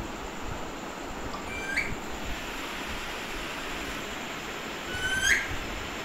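Pet green parakeet giving two short, rising whistled calls, one about a second and a half in and a louder one near the end, over a steady hiss.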